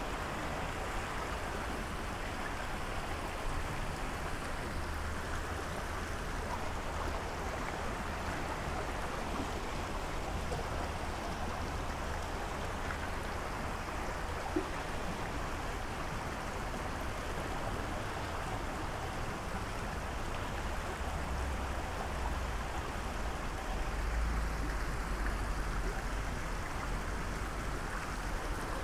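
Steady rushing of a fast-flowing river. A low rumble rises near the end, and there is a single faint click about halfway through.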